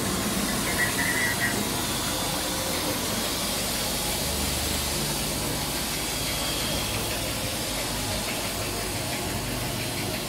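Engine of a gondola's cable winch running steadily under a constant hiss.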